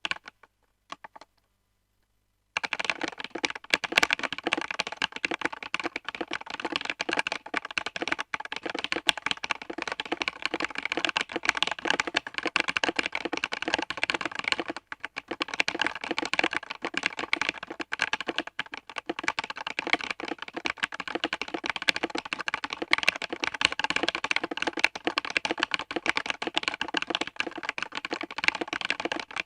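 Typing on a Redragon K630 mechanical keyboard with KTT Kang White linear switches lubed with Krytox 205g0, foam dampening and SA profile keycaps; the spacebar is a lubed Kailh Box Black. A few single key presses, then a dense, steady run of keystrokes from about two and a half seconds in, broken by a brief pause around halfway.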